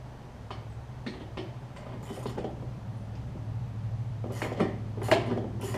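Scattered metallic clicks and clinks of hand tools and cable hardware being worked while loosening the blade brake cable on a Toro Recycler push mower, getting busier toward the end, over a steady low hum.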